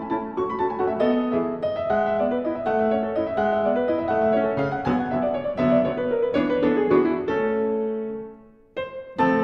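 Background piano music: a melody of struck notes, breaking off briefly near the end before starting again.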